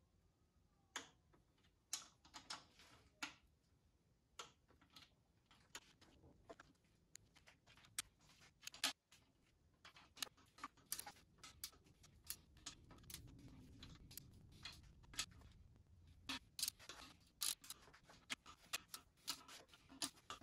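Ratchet wrench clicking in short, irregular runs as the engine's bedplate bolts are tightened to torque.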